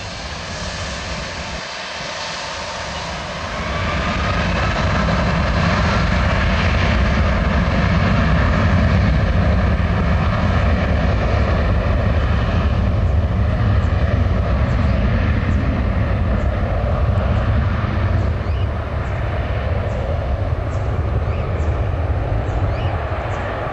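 Boeing 757-200's twin Rolls-Royce RB211 turbofans spooling up to takeoff thrust about three and a half seconds in, then a loud, steady low rumble with a faint whine above it through the takeoff roll. The sound eases a little near the end as the jet accelerates away.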